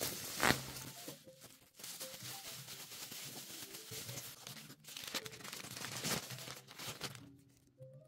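Plastic bubble wrap and newspaper packing crinkling, rustling and tearing as a wrapped item is pulled out and unwrapped by hand, dying away near the end.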